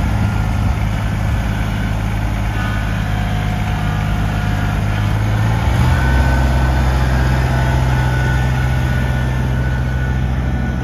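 Kubota BX25D compact tractor's three-cylinder diesel engine running steadily as the tractor is driven slowly. Its tone deepens slightly about six seconds in.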